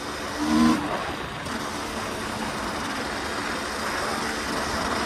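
KTM 300 EXC single-cylinder two-stroke dirt bike engine running under way, with a brief louder rev about half a second in. A steady rush of riding noise lies under the engine the whole time.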